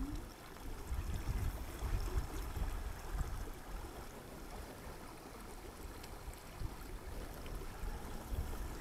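River water running over a fast riffle, with wind gusting on the microphone as an uneven low rumble.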